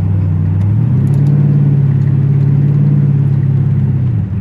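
Car engine pulling under acceleration: its note climbs to a higher pitch about a second in, holds steady, and drops back near the end.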